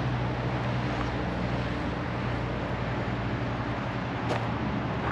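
Steady hum of distant road traffic, with one brief click about four seconds in.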